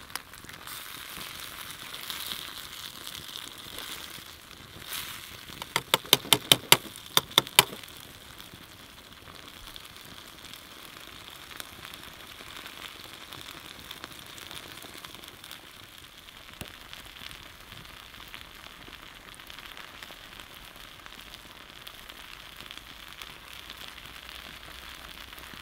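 Campfire crackling with a steady sizzle from food frying in a mess-kit pan over the coals. A quick run of about eight sharp pops comes around six to eight seconds in.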